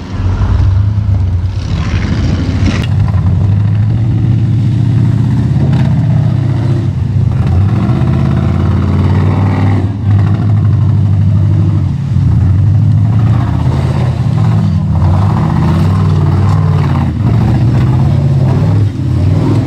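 Extreme-trial off-road buggy engines running hard and revving under load on a steep rocky climb, with the sound jumping abruptly a few times.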